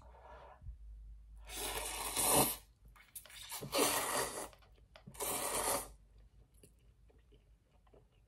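A person slurping instant noodles from chopsticks: three loud slurps in the first six seconds, then quiet chewing.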